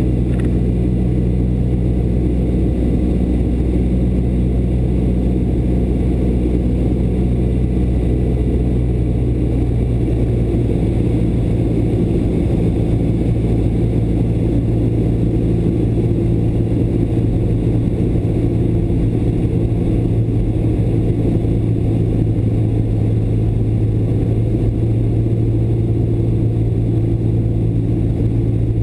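Small single-engine propeller plane's piston engine and propeller droning steadily, heard inside the cockpit during the landing approach.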